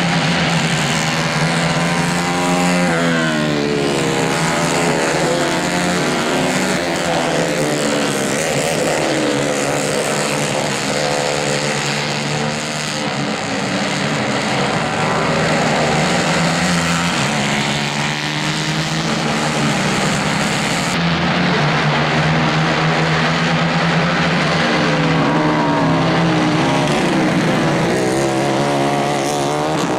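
Several 150 cc racing kart engines running hard together, each pitch rising and falling again and again as the karts accelerate out of the turns and ease off into them.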